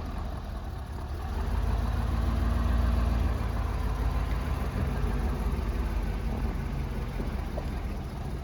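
Vehicle engine running with road noise while driving on a back road, a steady low rumble that swells for a second or two a couple of seconds in and then settles.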